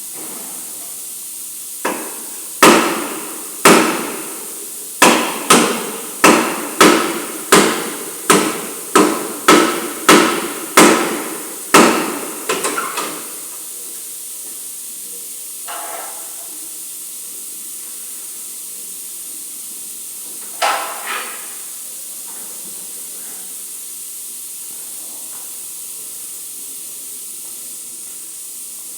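Hammer blows on metal, as in panel-beating a vehicle body panel: about a dozen hard, ringing strikes at roughly one to two a second, then a quick run of light taps. After that come a couple of single knocks.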